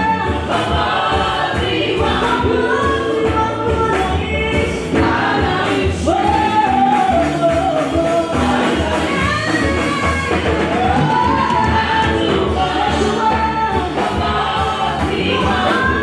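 Gospel choir of men and women singing together, backed by a live church band with electric guitar, keyboard and drums keeping a steady beat.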